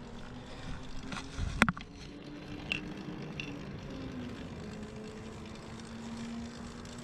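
Cannondale Hooligan bicycle rolling on concrete pavement: steady tyre and road noise with a faint hum. A sharp knock comes about a second and a half in, and a lighter click about a second later.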